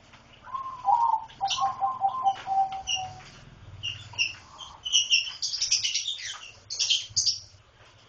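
Lovebirds chirping: a run of lower, evenly repeated notes in the first few seconds, then a flurry of short, sharp, high chirps.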